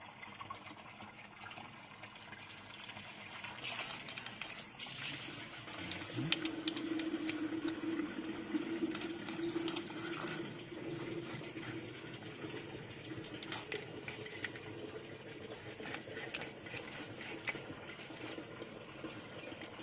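Knife cutting and scraping through a whole fish on a wooden chopping block: scattered knocks and scrapes over a steady hiss, with a faint hum partway through.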